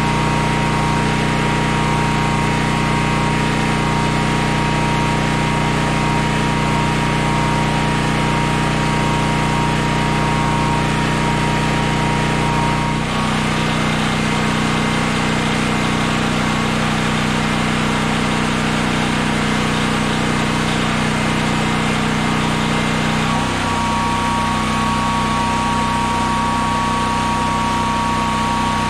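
Honda EB6500X generator's single-cylinder engine running steadily under load, with a thin steady whine above it. Its note shifts twice, about thirteen seconds in and again about ten seconds later.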